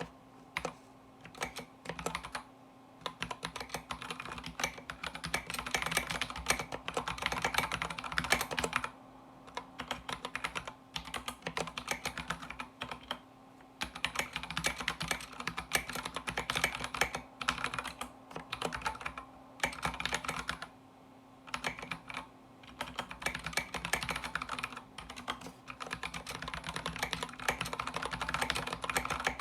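Typing on an MKB87 mechanical keyboard kit: fast runs of key clicks and clacks, broken by short pauses every few seconds.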